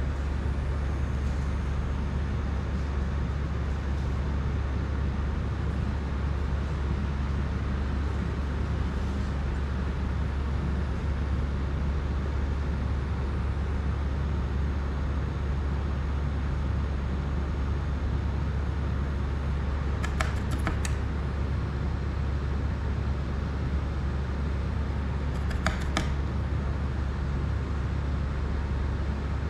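Steady low hum with a constant hiss of room or machine noise, broken by two brief flurries of small clicks, about twenty seconds in and again about six seconds later.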